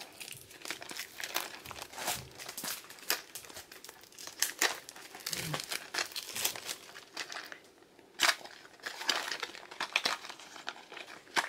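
Clear plastic wrapping crinkling as it is peeled and worked off a small box by hand, in quick irregular crackles with a sharper crackle about eight seconds in.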